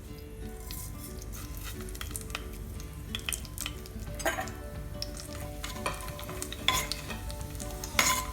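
Whole spices frying in hot ghee and oil in a pressure cooker, sizzling while a spoon stirs them and knocks and scrapes against the pot, the knocks louder in the second half. Soft background music plays underneath.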